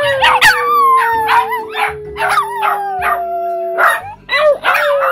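Small dog howling: one long howl that slowly falls in pitch for almost four seconds, then a short break and a second falling howl. Higher wavering yips or cries come over it.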